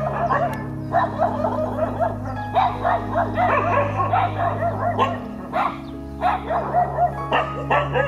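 Several dogs barking and yelping in quick bursts, over background music with sustained low notes.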